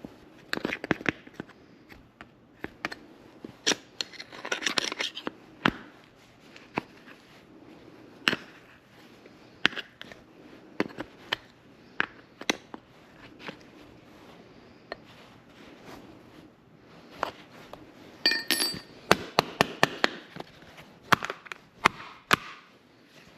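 Hand work on chainsaw parts and hand tools: irregular metal clicks, clinks and knocks with bouts of scraping, and a brief metallic ring about three quarters of the way in.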